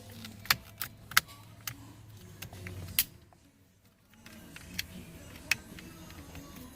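Sharp plastic clicks and handling noise from wiring-harness connectors being fitted and plugged in under a car's steering column, several separate clicks spread unevenly, with a short lull a little past halfway.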